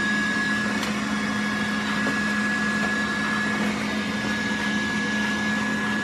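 Xiaomi S10+ robot vacuum cleaner running steadily: an even suction-fan hum with a thin high whine over it.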